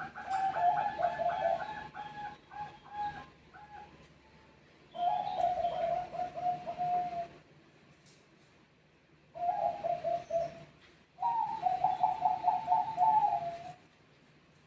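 Zebra doves (Bangkok perkutut) cooing in answer to one another: four phrases of quick, repeated coo notes with short pauses between them.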